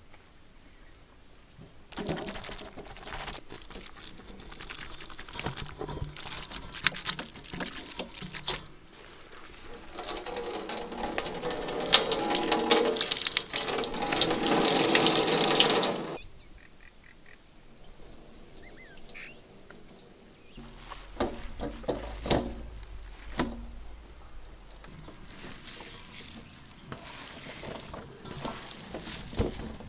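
Water splashing and streaming into a steel bowl as minced chicken is rinsed and wrung out in a cloth. The stream is loudest for several seconds in the middle and then stops suddenly. Quieter handling with a few knocks follows.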